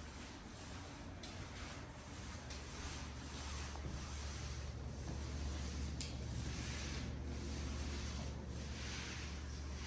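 Faint repeated rubbing or swishing strokes, about one a second, over a steady low hum.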